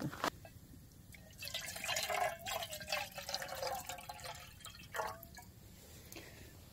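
Water poured from a bottle into a metal canteen cup, splashing and filling for about three seconds from a second and a half in, with a short knock about five seconds in.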